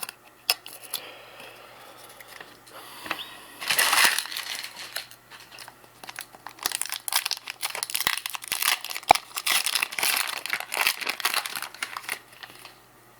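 Plastic wrapper of a trading-card pack crinkling as the pack is torn open and handled, with a burst about four seconds in and then a long run of quick crackles and clicks.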